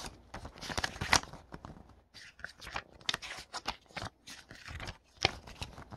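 Pages of a small paper instruction booklet being turned and rustled by hand, a string of short, irregular crinkling rustles.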